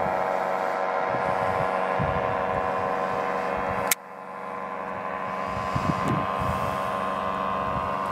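Distant paramotor engine and propeller droning steadily in flight, with a sharp click and a sudden drop in level about halfway through.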